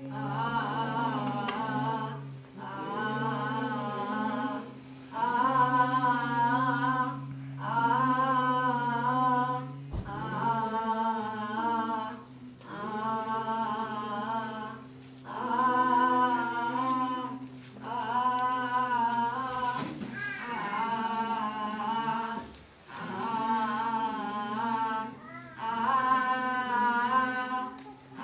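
Unaccompanied singing in short repeated phrases with a wavering, vibrato-like pitch, over a steady low held note that shifts down about halfway through.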